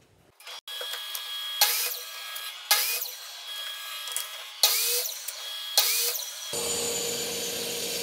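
Sliding compound miter saw making four quick 45-degree cuts through 3/4-inch boards: four loud, short bursts as the spinning blade goes through the wood, over the steady whine of the saw.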